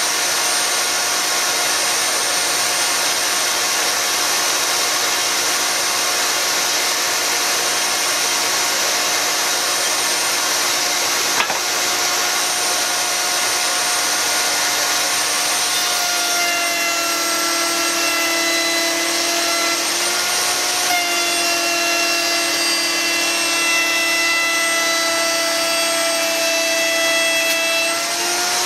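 Router in a router table running and cutting a rebate along a wooden strip as it is fed along the fence, with a dust extractor running steadily. A higher, steady whine of several tones joins in about halfway through, breaks off briefly, and stops just before the end.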